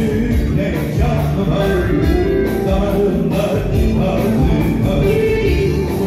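Turkish arabesk song played loud and live through a hall's sound system, a man singing over a band with a steady beat.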